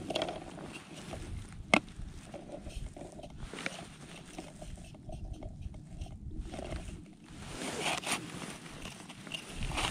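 Wind rumbling and buffeting on the microphone in hard frost, with small handling clicks; one sharp click, a little under two seconds in, is the loudest sound.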